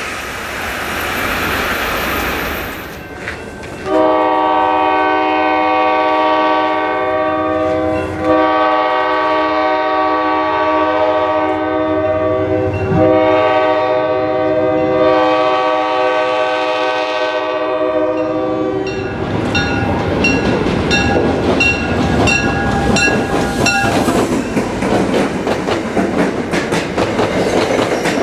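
The tail of a high-speed electric train rushing past. Then a commuter train's diesel locomotive sounds its multi-chime air horn in four blasts, long, long, short, long, the grade-crossing signal. A bell rings in steady strokes for a few seconds, then the passenger coaches rumble past with wheels clacking over the rail joints.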